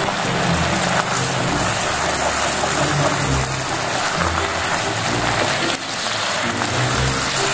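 Sauce of pork belly and salted mustard greens bubbling and sizzling steadily in a frying pan as it reduces, under background music.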